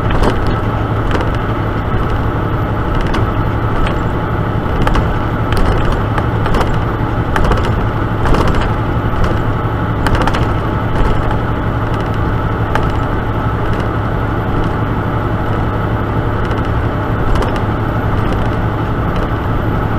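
Steady drone of a semi-truck's engine and road noise heard inside the cab at highway speed, with scattered light clicks and rattles.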